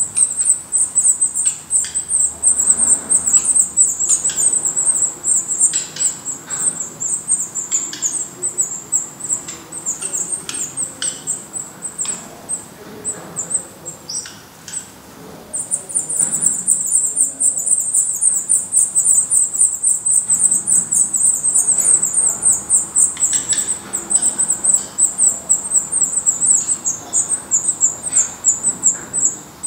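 Black redstart nestlings begging: a continuous, very high-pitched rapid cheeping. It thins out a little before the middle and starts up again strongly about halfway through.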